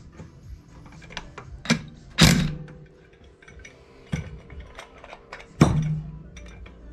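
Metal knocks and clanks from work on a clutch: about four sharp knocks, each ringing briefly, the loudest about two seconds in, over a faint steady hum.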